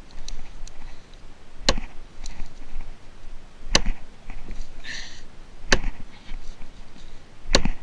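Gränsfors Bruks mini hatchet, its blade set in a cedar driftwood plank, struck on the back with a hand-held striker to drive it down and split the wood: four sharp knocks about two seconds apart.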